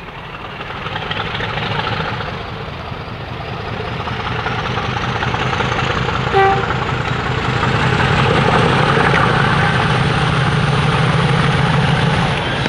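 English Electric Class 50 diesel locomotive 50015 Valiant, its V16 engine working hard under power with a second locomotive behind, growing steadily louder as it approaches. A brief toot sounds about halfway through.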